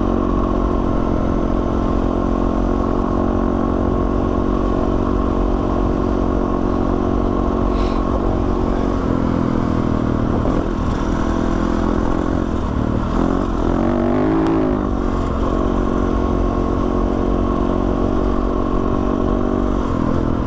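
Yamaha WR450F single-cylinder four-stroke enduro engine running at a steady pace on a forest single track, with a brief rise and fall in revs about two-thirds of the way through.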